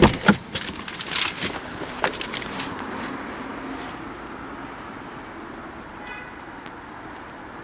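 Audi A8 driver's door opened from the inside handle: a sharp click and a louder knock as the latch releases. Then a couple of seconds of rustling and knocks as someone climbs out, settling into steady background noise.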